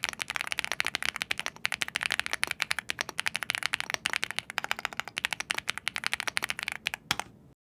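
Continuous fast typing on a VTER Galaxy 80 mechanical keyboard: a dense run of keystroke clacks, many per second, that stops about seven seconds in.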